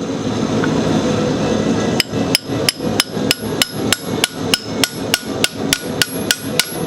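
Hammer striking a long chisel to cut a groove into a hot 1/2-inch steel bar: light, even blows about three a second, each with a short metallic ring. The blows start about two seconds in, after a steady rushing background noise.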